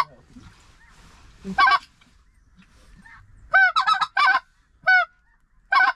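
Goose honking in short, loud calls: one honk early, a rapid run of several high honks in the middle, then two single honks near the end.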